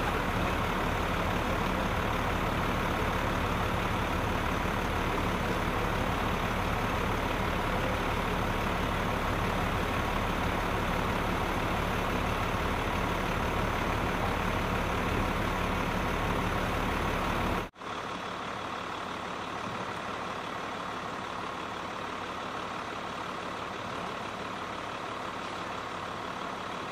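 A large vehicle's engine idling, a steady low hum. About two-thirds through it cuts abruptly to a quieter but similar steady rumble.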